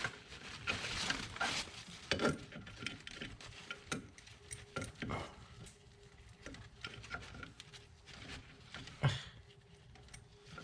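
Wrench and metal hand tools clicking and clinking against brake-line fittings and nuts: irregular light knocks and ticks, spaced unevenly.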